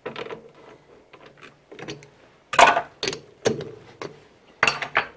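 Metal clicks and clunks of tools and a steel part being handled at a metal lathe's chuck, loudest about two and a half seconds in and again in a cluster near the end.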